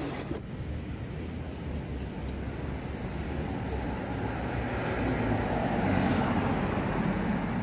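Street traffic noise, with a vehicle passing that grows louder from about four seconds in and is loudest around six seconds.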